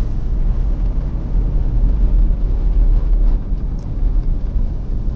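Steady low rumble of engine and road noise heard inside the cabin of a moving car.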